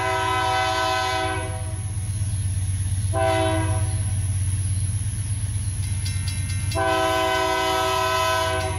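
Air horn of Union Pacific GE AC4400CW locomotive #5691 sounding the grade-crossing signal: a long blast, a short blast about three seconds in, and another long blast starting near the end. A steady low rumble from the approaching train runs underneath.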